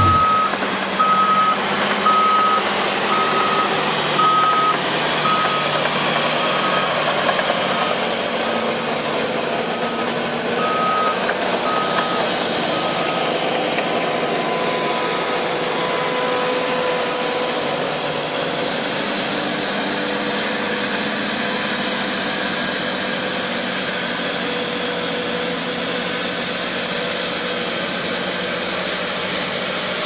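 Heavy earthmoving machinery's diesel engine running steadily, with a reversing alarm beeping about once a second that fades out about halfway through: a machine backing up.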